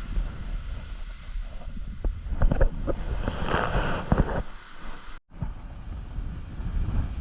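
Wind buffeting the microphone with a steady low rumble over ocean surf, a rush of surf hiss swelling around the middle with a few knocks. The sound briefly cuts out completely about five seconds in.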